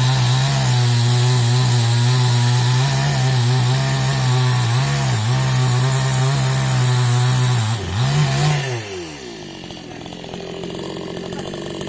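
Chainsaw running at full throttle, cutting through wood, its pitch sagging briefly about halfway through. Near the end it revs once, then the throttle is released and the engine winds down, leaving a quieter steady sound.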